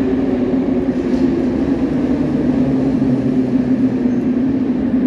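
Metro train at an underground station platform, giving a loud, steady electric hum that holds one pitch.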